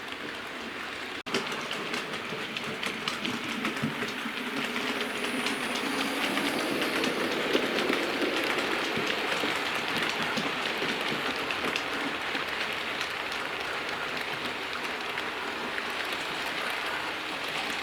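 Hornby OO gauge model of the steam locomotive Tornado running round a model railway track with its coaches: a steady rumble of motor and wheels with fine rapid clicking over the rail joints, growing louder around the middle as it passes close, with a brief break in the sound about a second in.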